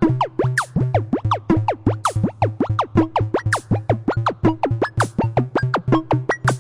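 Comical electronic sound-effect loop: rapid falling-pitch zaps, several a second, over a pulsing low bass, with a noisy hit about every second and a half.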